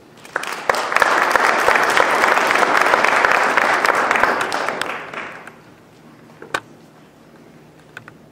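Audience applauding for about five seconds, then dying away, followed by a couple of isolated light knocks.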